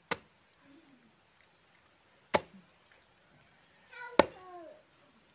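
A large knife chopping through a whole fish on a wooden chopping block: three sharp chops about two seconds apart, the last the loudest. A short falling call sounds around the last chop.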